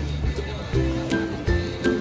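Music with a steady beat, held notes and a bass line.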